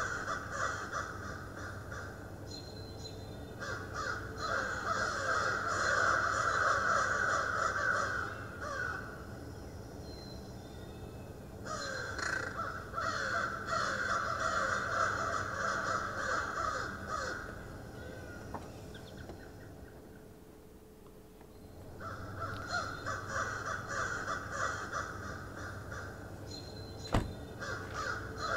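Birds calling in long bouts over a steady low hum, pausing for a few seconds about two-thirds of the way through. A single sharp click comes near the end.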